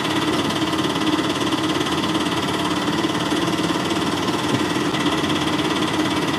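Small DC motor of a homemade matchbox toy rickshaw running steadily as the toy drives along.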